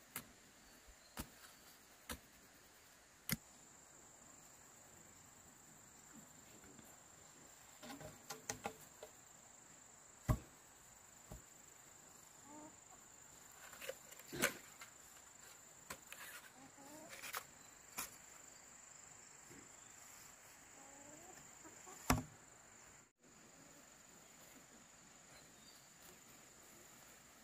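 Faint, steady high-pitched insect shrilling, like crickets, with sharp knocks or taps scattered every few seconds.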